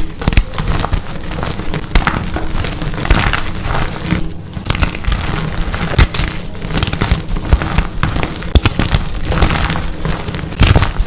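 Dyed gym chalk blocks being crushed and crumbled, a dense run of crisp crunching and crackling with sharp cracks and low thuds.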